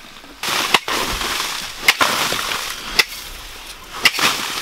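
Four sharp knocks about a second apart, with a rough crunching noise between them.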